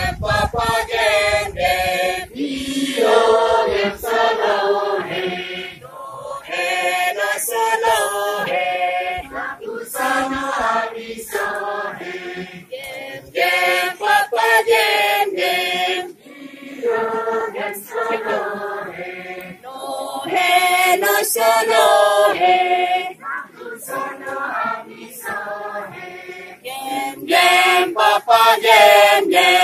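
A group of Tangsa Naga dancers singing a traditional dance song together, in short phrases with brief breaks between them.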